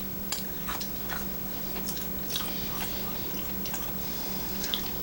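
Close-up eating sounds: a person chewing food, with irregular small wet clicks and crunches. A faint steady hum runs underneath.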